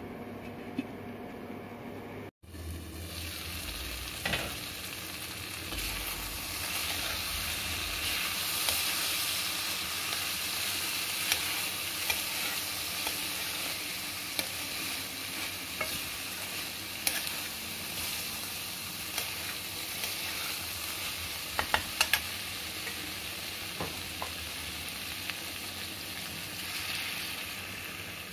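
Chickpeas and soya chunks frying in masala in a wok, sizzling steadily while a spatula stirs them, with sharp clicks of the spatula against the pan. The sizzle starts about two seconds in, after a short hum.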